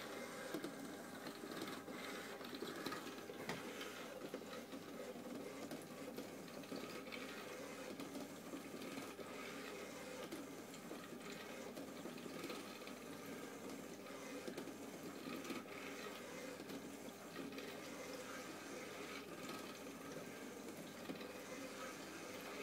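Small electric motor of a rotating laser cat toy whirring steadily, with a few faint clicks.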